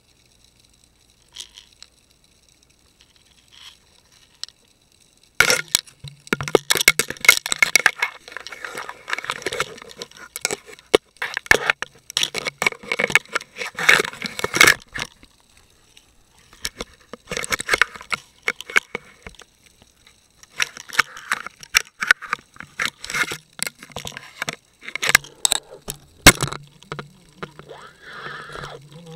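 Dense, irregular clicking, cracking and scraping, picked up through an underwater camera's housing as a blue swimmer crab clambers over the camera and works at the bait with its claws. Only a few scattered clicks come in the first five seconds, then the clicking comes thick and fast in clusters.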